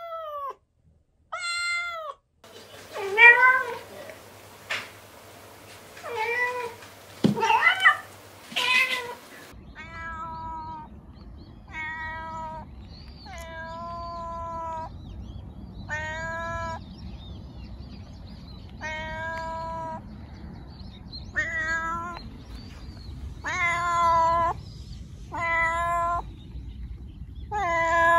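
Domestic cats meowing: several meows from one cat, then, from about ten seconds in, a second cat meowing over and over, about ten drawn-out meows one every second or two over a steady low background noise.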